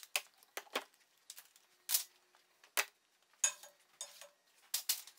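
One-handed bar clamps being released and pulled off a glued-up wooden board: an irregular run of sharp clicks and knocks, about a dozen, with a couple of short scrapes.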